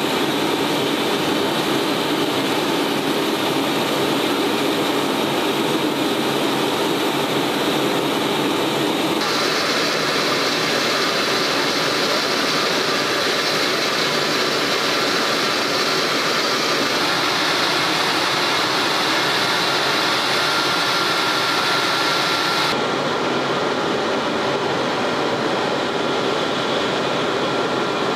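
Steady, loud jet-turbine rush and whine of aircraft on a flightline. It changes abruptly twice, first about a third of the way in and again near the end, with a faint high whine holding steady through the later part.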